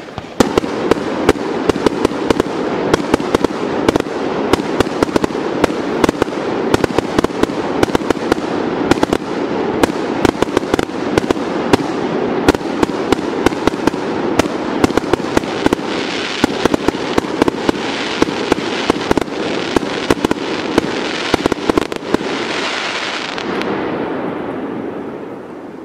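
Aerial fireworks in a rapid barrage: a dense run of sharp bangs over continuous crackling, dying away near the end.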